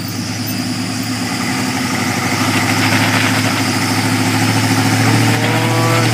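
Chevy K1500 Suburban engine running hard under load, growing steadily louder, as it tows a stuck flatbed wrecker out of mud on a strap.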